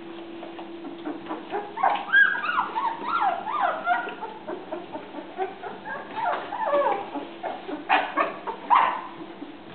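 Litter of two-week-old Rhodesian Ridgeback puppies whimpering and squealing: many short, high cries that rise and fall and overlap, loudest about two seconds in and again near the end. These are the hungry cries of puppies crowding their mother to nurse.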